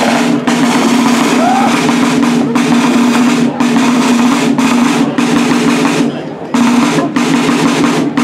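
Buekorps rope-tensioned side drum played in fast, continuous rolls, broken by brief gaps every second or so, with a longer break about six seconds in.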